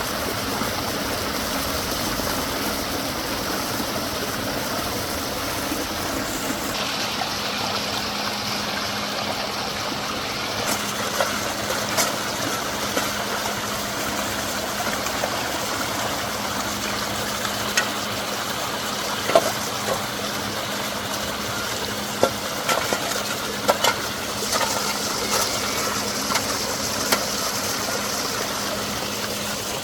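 Rain-swollen water pouring down a small farm waterfall, a steady unbroken rush.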